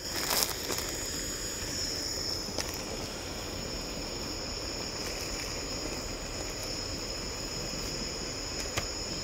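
Sliced mushrooms added to a pan of eggplant and pepper frying on a camping stove, which hisses steadily, over a steady high chirring of crickets; a few light knocks about half a second in as the mushrooms are gathered off the cutting board.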